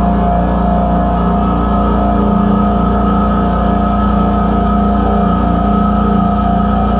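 SYIL X7 CNC milling machine cutting Monel K500 to take the mill scale off the stock: a steady machining hum with a high whine on top that holds an even pitch under constant load.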